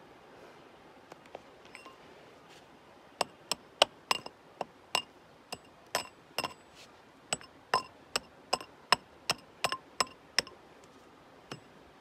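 Steel tool chipping into rock, about twenty sharp ringing strikes in a quick, uneven rhythm that start about three seconds in and stop about ten and a half seconds in, with one last knock near the end.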